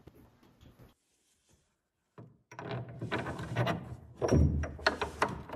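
After a couple of seconds of near silence, there is handling noise in a wooden pickup bed: a run of irregular knocks and clunks with several sharp clicks near the end, as a hand fits a fastener through an opening in the bed floor.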